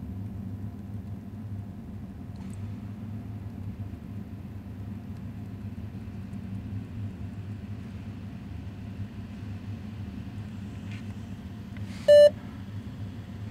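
Steady low electrical hum, then about twelve seconds in a single short, loud electronic beep from the HP ProBook 430 G7 laptop as it starts up after a memory upgrade. The beep comes just before the POST warning that the system memory size has changed.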